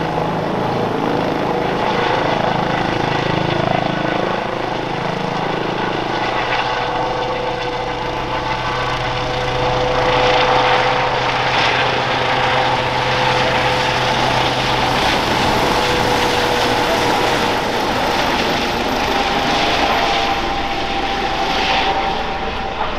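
Airbus H135 P3 helicopter flying overhead: steady rotor noise mixed with the whine of its twin Pratt & Whitney PW206B3 turboshaft engines. A low steady hum in it drops away about two-thirds of the way through.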